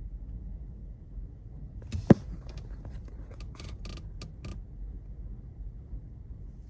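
Steady low drone of the ferry's engines, with a sharp knock about two seconds in followed by a couple of seconds of clicking and rattling.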